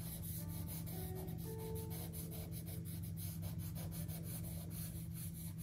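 A pencil scratching across sketchbook paper in a quick run of short strokes, over a steady low hum.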